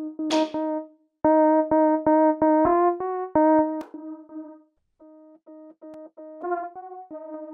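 Synthesizer preset playing short staccato notes, mostly one repeated pitch with a few steps up, with a brief noisy swish about half a second in. Partway through the notes turn quieter, with short gaps between them.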